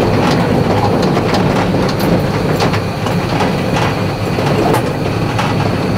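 Hemi-engined International truck driving along a rough dirt track, heard from inside the cab: a steady engine drone with scattered rattles and knocks from the body.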